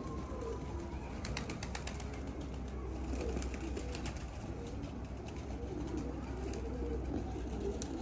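A flock of domestic pigeons cooing, with scattered sharp ticks of beaks pecking seed off concrete tiles, busiest in the first few seconds.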